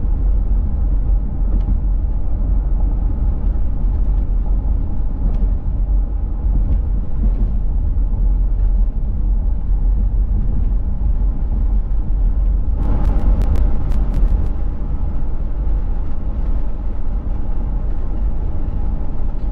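Car driving at road speed, heard from inside the cabin: a steady low rumble of tyres and engine. About two-thirds of the way through, a short run of sharp clicks over a brief rise in noise.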